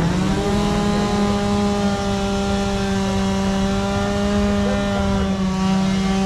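A small engine running steadily at a high, even speed: a constant buzzing drone whose pitch steps up slightly right at the start and then holds.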